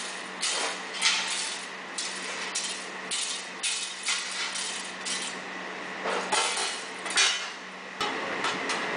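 Small metal tools and parts clinking and clattering as they are gathered by hand off the floor into a tray, a sharp clink every half second or so, dying away about seven seconds in.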